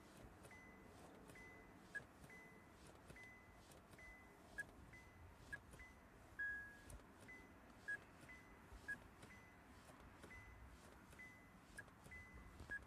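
A car's electronic warning chime beeping faintly about once a second, with a few shorter, lower-pitched beeps mixed in.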